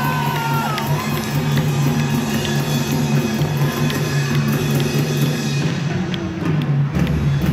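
Loud recorded music with a steady drum beat played over the ceremony's loudspeakers, with crowd noise beneath it.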